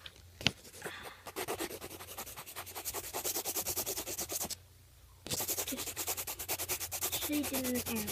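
A soft 6B graphite pencil held on its side, shading on paper in rapid back-and-forth strokes, several a second, giving a scratchy rubbing that pauses briefly a little past halfway. A sharp tap sounds about half a second in.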